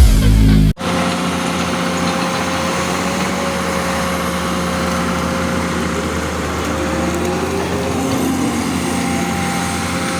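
Excavator's diesel engine running steadily, with a thin steady whine over it. Loud electronic intro music cuts off abruptly under a second in.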